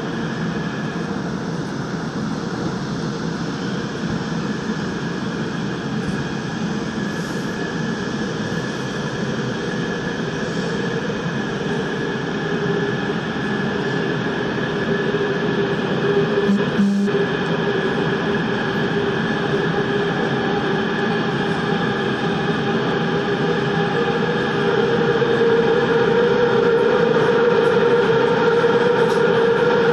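Busan Metro Line 3 train heard from inside the car, running with steady wheel-and-rail noise and a few steady motor tones. It grows louder from a little before halfway as the train goes into a tunnel, with a single knock a little past halfway.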